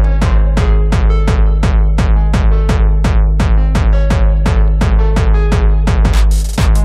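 Industrial acid techno: a fast, pounding drum-machine kick at about three and a half hits a second under a synth line that steps between notes. Near the end the kick drops out for a moment under a brief noise sweep, then comes back.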